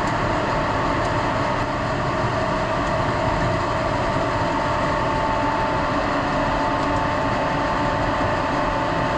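Steady drone of running industrial machinery, an even rumble and hiss with a few steady whining tones above it and no change throughout.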